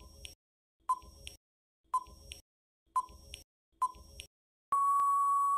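Countdown timer sound effect: five short beeps about a second apart, then one long steady beep near the end as the count runs out.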